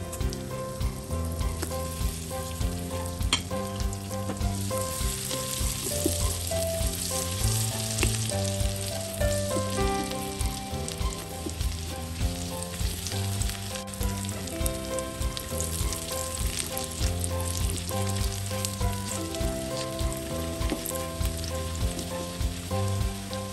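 Minced garlic sizzling in hot oil in an aluminium wok, stirred with a metal spatula. The sizzle swells twice. Background music with a steady beat plays throughout.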